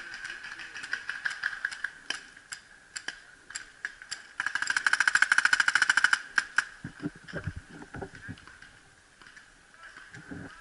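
Paintball markers firing: scattered single shots, then a rapid, evenly spaced string of shots lasting nearly two seconds about four seconds in, the loudest part. A few dull thumps follow.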